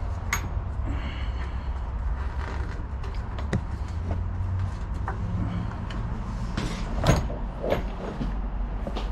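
Plastic intake manifold of a 5.3 L V8 being lifted off and handled, giving scattered knocks, clicks and creaks of plastic against the engine; the loudest knock comes about seven seconds in, over a steady low hum.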